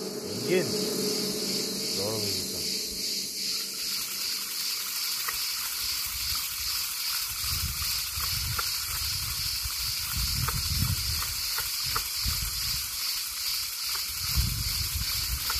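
Cicadas buzzing in a steady, high-pitched chorus that pulses a few times a second. A low rumble comes in during the second half, with a few faint clicks.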